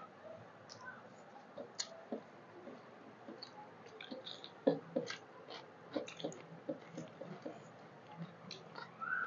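Close-up eating sounds from people eating rice and curry by hand: chewing, wet mouth smacks and soft clicks, with the loudest few about five seconds in, around a bite into a raw onion slice.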